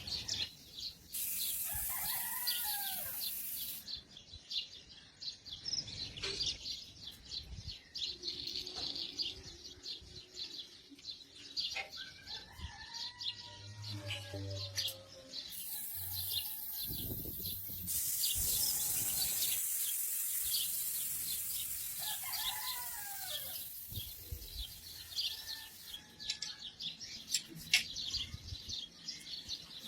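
Small birds chirping steadily in the background, with a few longer calls. A steady high hiss comes in twice, briefly near the start and for about ten seconds past the middle.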